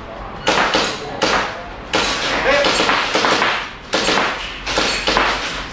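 Airsoft rifles firing a dozen or so single shots in quick, uneven succession.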